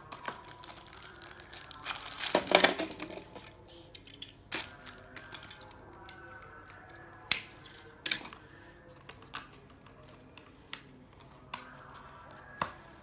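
Hands handling a small cardboard toy box and a die-cast Tomica toy car: a burst of packaging rustle about two seconds in, then scattered light clicks and taps as the car is turned over and set on the table.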